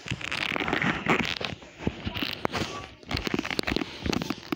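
Rustling and crackling with many irregular small knocks and clicks: handling noise close to the microphone, as something rubs and bumps against the tablet.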